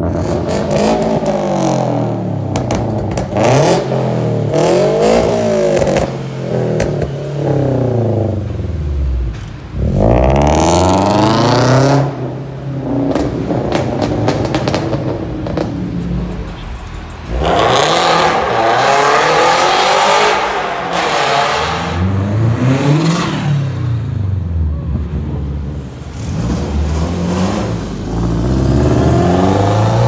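Modified Japanese performance car engines revving hard and accelerating away, one car after another, beginning with a Mazda RX-7's twin-rotor rotary. The engine note climbs and falls in repeated sweeps, with sharp crackles and pops from the exhausts between revs.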